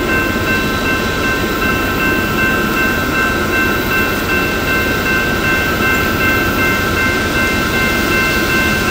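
Railroad crossing bell ringing continuously at an activated grade crossing, heard as steady high ringing tones over a constant low rumble from an approaching freight train.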